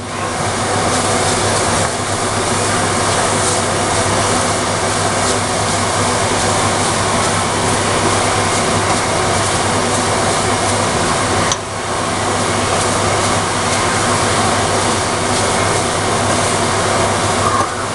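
Steady electric fan noise, an even rushing sound with a low hum, dipping briefly about two thirds of the way through.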